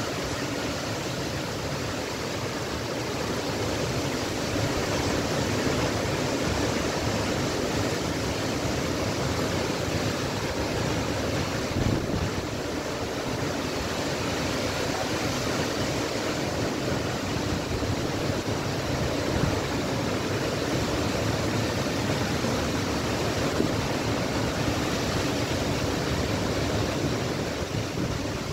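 Strong gusting wind of a dust storm rushing through trees, a steady noise with a restless low rumble of wind on the microphone. One brief knock about twelve seconds in.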